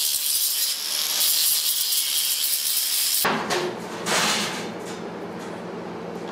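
Angle grinder grinding steel, a steady high-pitched hiss for about three seconds that cuts off suddenly. Then comes the clanking of a hand-lever sheet-metal shear, with a sharp knock about four seconds in.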